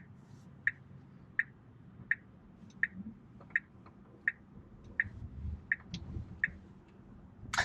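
Turn-signal indicator of a Tesla Model 3 ticking steadily in the cabin, about three ticks every two seconds, over a faint low hum.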